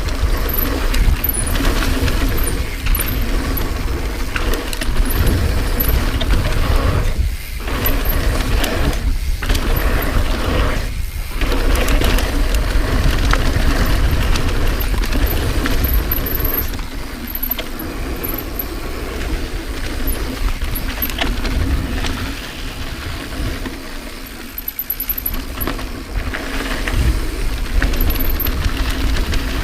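Santa Cruz 5010 mountain bike riding a downhill trail at speed: tyres rolling over dirt, with the chain and frame rattling and wind buffeting the microphone. The noise drops out briefly three times about a third of the way in.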